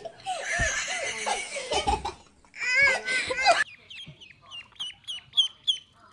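Children laughing and squealing, then, after a cut about three and a half seconds in, ducklings peeping: a quick run of short, high peeps, each falling in pitch.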